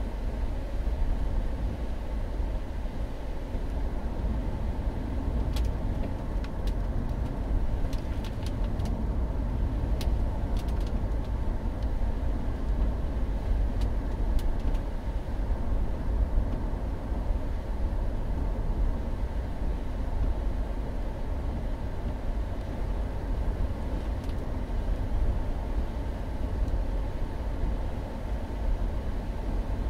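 Steady low rumble of a Mercury Grand Marquis's V8 engine and tyres on a wet road, heard inside the cabin, with a scatter of light ticks between about five and fifteen seconds in and once more near the end.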